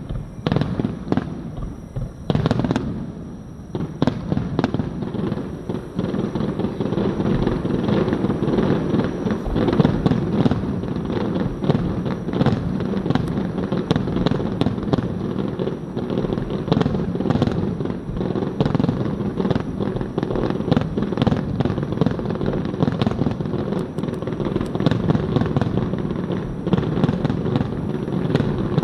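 Fireworks going off in a dense, continuous barrage of booms and crackles, with a short lull about three seconds in before the bursts pile up again.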